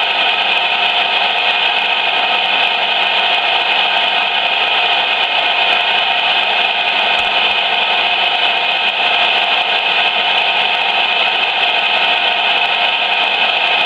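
Steady, loud hiss of CB radio static from the radio's speaker, with a few faint steady tones in it.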